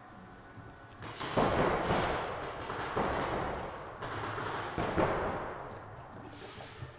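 Paintball markers firing rapid strings of shots, starting about a second in and coming in several waves, echoing in a large indoor hall.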